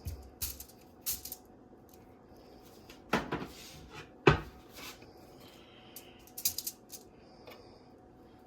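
Kitchen handling sounds while a fish is prepared on foil: scattered light clicks and knocks, a short rustle about three seconds in, and one sharper knock just after four seconds.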